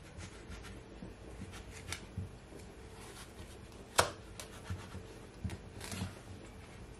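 Kitchen knife cutting lengthwise through a cucumber on a wooden cutting board: quiet scraping and rustling of the blade and hand on the skin, with a few light clicks and one sharp tap about four seconds in.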